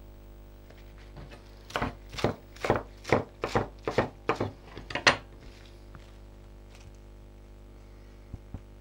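Chef's knife chopping leaf lettuce on a wooden cutting board: about ten quick strokes, roughly three a second, starting nearly two seconds in and stopping after about three seconds.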